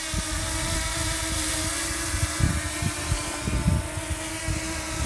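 DJI Mini 2 quadcopter hovering, its propellers giving a steady multi-tone whine, with wind rumbling unevenly on the microphone.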